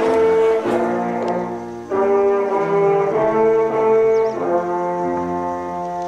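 Music played by brass instruments: a slow run of held chords, changing every second or so.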